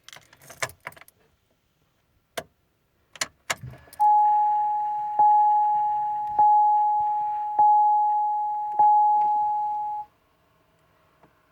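Keys jangling and clicking as the key goes into the 2005 Chevy Trailblazer's ignition and is turned, then the dash warning chime dings five times, about a second apart, each ding fading before the next. The engine does not crank.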